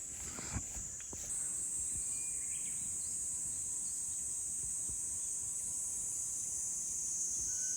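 Cicada singing a continuous high-pitched buzz, which the gardener takes for a Kaempfer cicada (niiniizemi). It steps up in loudness about a second in and drops slightly in pitch near the end.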